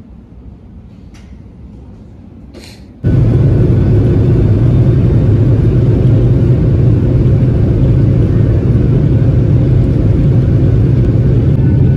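Jet airliner engines and runway rumble heard from inside the cabin during the takeoff roll: a loud, steady rumble with a strong low hum that starts suddenly about three seconds in. Before it, quiet airport terminal ambience with a few faint clicks.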